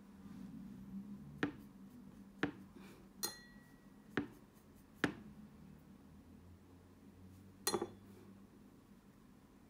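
Light clinks of a paintbrush against a small paint dish as yellow and a little red paint are mixed to an orange: about six irregular taps, one ringing briefly about three seconds in and a quick double tap near the end.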